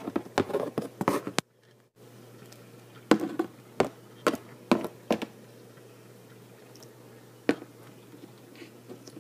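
Hard plastic Littlest Pet Shop figurine tapped and hopped across a plastic tray lid: a scattering of sharp, irregular clicks, clustered near the start and a few more spread through the middle, over a faint low hum.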